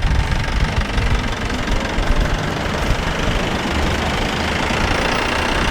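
Safari jeep driving, its engine running under steady wind buffeting on the microphone.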